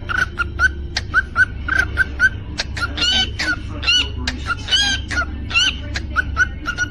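Cockatiel chirping: a quick, even run of short chirps, about three a second, broken in the middle by a few louder, longer whistled calls.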